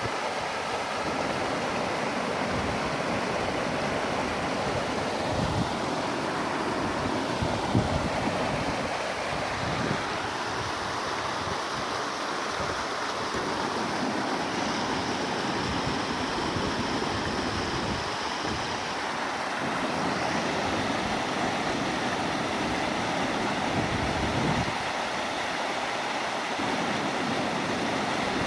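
Waterfall: falling water rushing steadily, with a few brief low rumbles.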